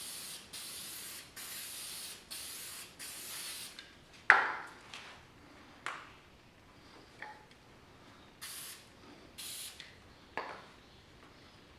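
An aerosol can of spray adhesive sprays in a quick run of short hissing bursts, about one every second for the first four seconds, then twice more near the end. Between the sprays come a few sharp clacks; the loudest, about four seconds in, rings briefly.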